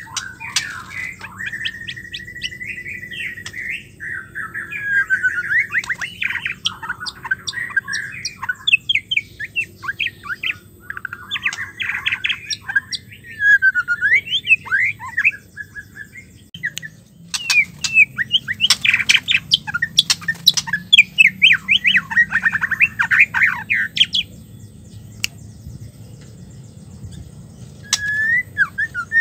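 White-rumped shama singing in bursts: a long held whistle, then runs of rapid chattering and harsh notes with pauses between phrases, a longer lull near the end and a short whistle just before it ends.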